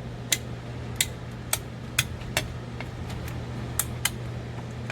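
A series of sharp, irregular clicks and taps of small hard parts being handled, about two a second, over a steady low hum.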